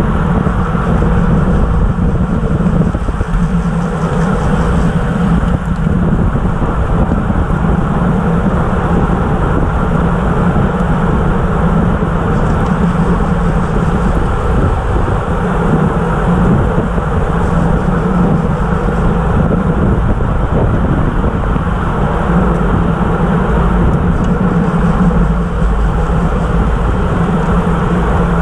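Steady rush of wind over the onboard camera's microphone, mixed with the hum of road-bike tyres on pavement at racing speed.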